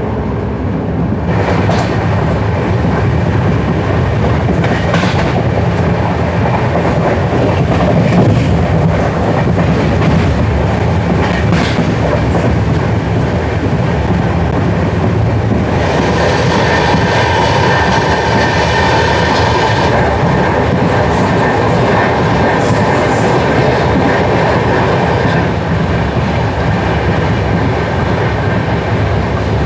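Passenger express train running along the line, heard from on board: a steady loud rumble of the coaches with wheels clicking over the rail joints. About halfway through, a brighter, higher-pitched ringing joins in for a few seconds.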